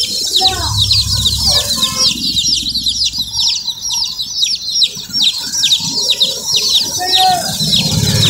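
A flock of young chicks peeping without pause, many short, high cheeps falling in pitch and overlapping. A low hum runs beneath from about half a second in to three and a half seconds, and again near the end.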